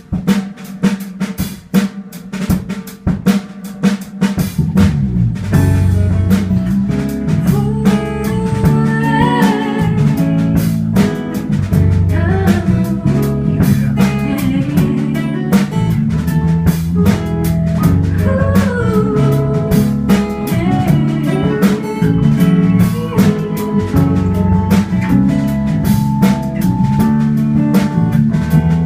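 Live band intro of a hip-hop song: drums alone for the first few seconds, then bass, guitar and other instruments come in with a steady beat.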